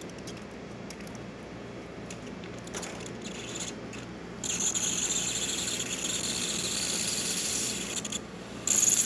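Steam wand of a Breville espresso machine while its thermoblock is still heating up. A low hum at first; about halfway through, a high-pitched hiss of steam starts, cuts out briefly near the end and comes back stronger.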